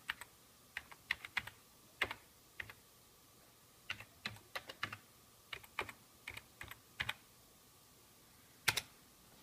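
Computer keyboard keys being typed in short, irregular taps as a Wi-Fi password is entered, with one louder keystroke near the end.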